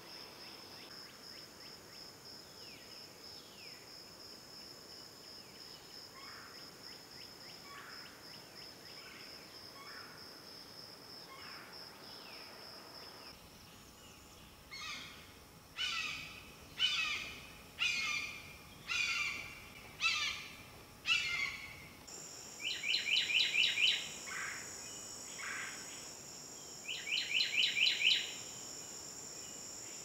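Swamp birds and insects: a steady high insect trill with scattered faint bird calls, then from about halfway a bird calling loudly about once a second, six or seven times. Near the end a higher insect trill runs under two quick rattling bird calls.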